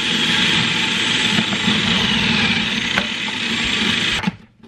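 Food processor motor running loud and steady while cabbage is pushed down the feed tube and shredded, then switching off abruptly near the end.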